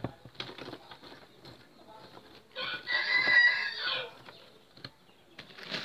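A rooster crows once, a call of about a second and a half in the middle, the loudest sound. Around it come faint, scattered clicks of charcoal pieces being fitted into a wooden orchid basket.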